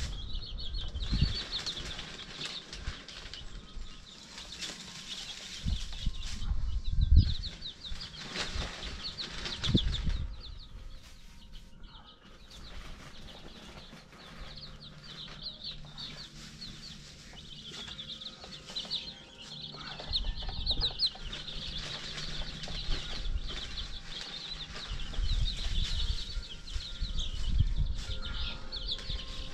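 A brooder full of baby chicks peeping continuously in quick, high chirps. Low thumps and rustling in the wood-shavings bedding come through as the chicks are handled.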